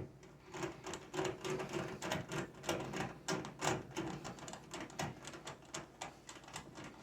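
Rapid, irregular clicking and light knocking from hands working on the microwave and its parts during reassembly after a fuse replacement.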